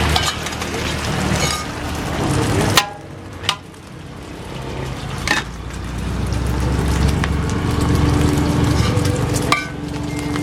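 Noodles and seafood stir-frying in a wok: a steady sizzle with a metal spatula clacking and scraping against the pan. The sizzle drops away sharply about three seconds in, then builds back up over the next few seconds.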